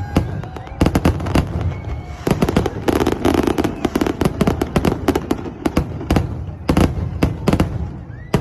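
Fireworks going off in quick, irregular succession: many sharp bangs and crackling clusters over a steady low rumble.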